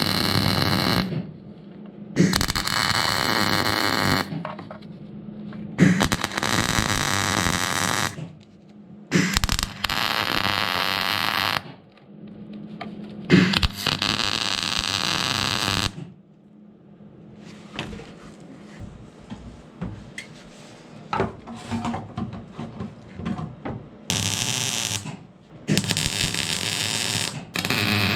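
Welder laying a series of short welds on van body sheet metal: about seven bursts of arc noise, each one to three seconds long, over a steady electrical hum.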